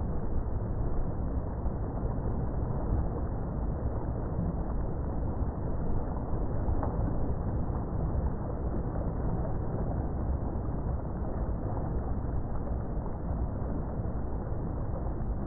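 Boat under way: a steady rumble from the boat and the rush of churning water in its wake.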